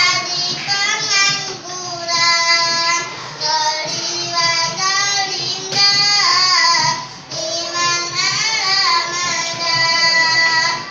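A young boy singing solo in long melodic phrases, holding notes that bend and slide in pitch, with a short breath pause about seven seconds in.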